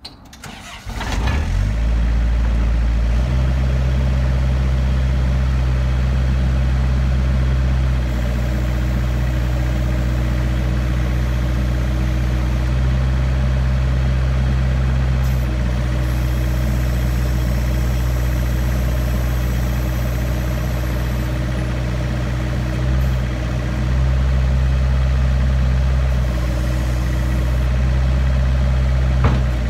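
Barford SX3000 swivel-skip site dumper's diesel engine running steadily just above idle. Its note shifts every several seconds as the hydraulics swivel, raise and tip the skip.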